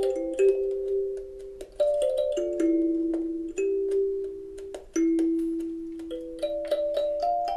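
Wooden box kalimba being played: metal tines plucked in a slow melody, with several notes ringing over one another as each decays. Near the end a quicker run of notes climbs higher.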